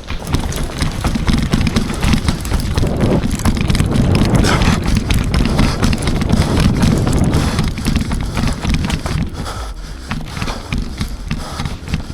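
Continuous rustling and knocking close to the microphone with low wind buffeting, loudest in the middle and easing off near the end: the sound of a body-worn camera on the move.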